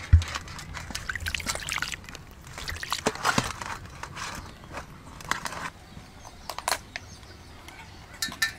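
Water splashing, sloshing and dripping in an aluminium basin as live mud crabs are rubbed and turned by hand, in short irregular splashes.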